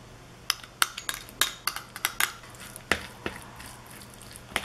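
Metal spoon clinking and scraping against a ceramic bowl in quick, irregular clicks as mayonnaise is stirred into chopped egg for egg salad.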